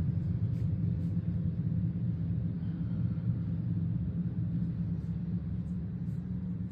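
Steady low rumble of room background noise, with faint soft ticks now and then.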